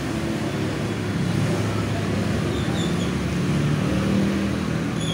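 Steady road traffic noise from vehicles passing on a toll road, with a low engine hum underneath.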